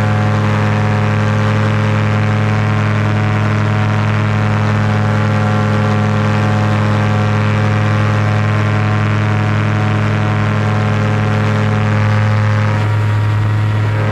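Paramotor engine and propeller running steadily at an even throttle, with a slight shift in tone about twelve seconds in.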